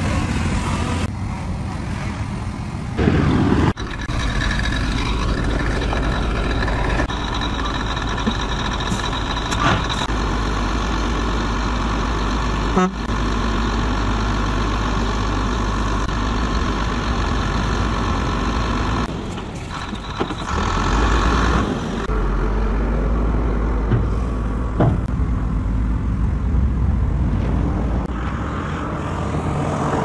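Shantui crawler bulldozer's diesel engine running steadily under load as it pushes a blade of dirt.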